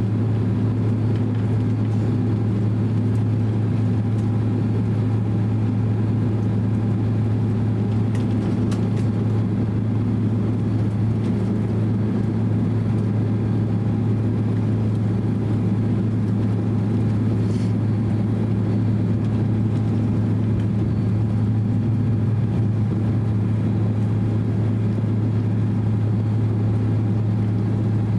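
Cabin noise inside a Boeing 767-300 airliner taxiing: a steady low hum from the engines at taxi power, with a few faint ticks.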